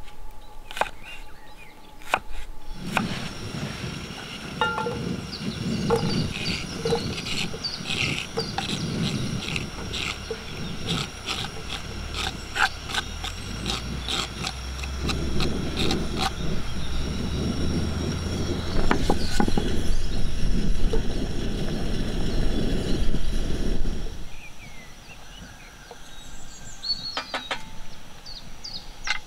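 Kitchen knife chopping a red onion on a wooden board, a quick series of sharp taps over a low rush. About halfway the chopped onion is scraped off the board into a pan on a gas-canister stove and fries, louder for several seconds until it drops away. Near the end, birds chirping.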